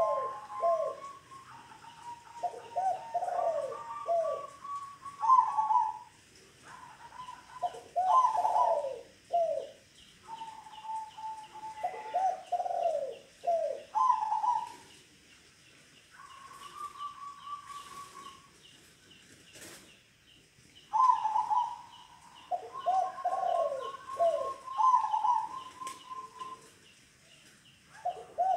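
Caged zebra doves (perkutut) cooing. Every few seconds comes a phrase of one held note followed by a quick run of falling coos, with more than one bird's phrases overlapping at slightly different pitches. Faint high chirping runs underneath.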